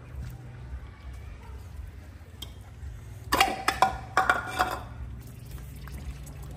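Hard objects clattering and clinking for about a second and a half, midway through, over a steady low hum.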